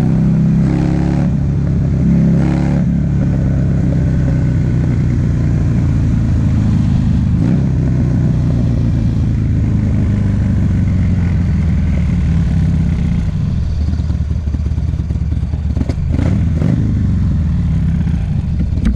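2009 Buell XB12Ss's air-cooled V-twin running through a loud Jardine aftermarket exhaust while the bike is ridden. The engine note shifts during the first few seconds, then holds fairly steady.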